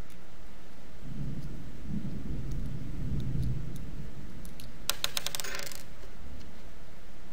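Small metal washers and nuts clinking together in a quick rattle about five seconds in, after a few light clicks and handling noise as the parts are fitted onto the bolts of the fuel cell by hand.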